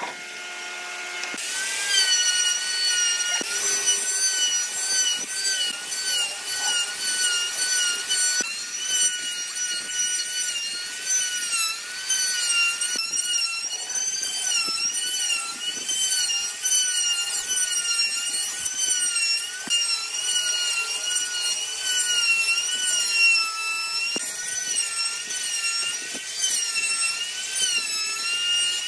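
Handheld electric plunge router cutting a groove in a wooden board, its high motor whine wavering up and down in pitch as the bit takes load. A different woodworking machine hums for about the first second and a half, before the router takes over.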